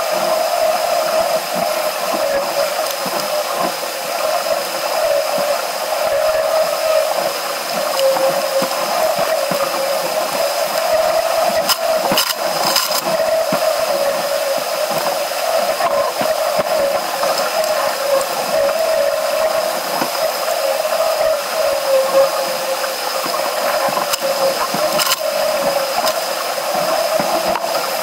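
Steady rushing of water and wind as a Musto Skiff sails, with a few brief knocks or splashes about halfway through and near the end.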